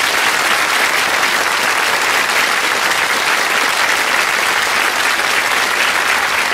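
Studio audience and contestants applauding, a steady even clapping.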